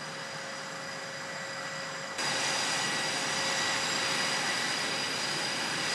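Jet engines running on an aircraft carrier's flight deck: a steady rushing noise with a high, even whine. It steps up louder about two seconds in.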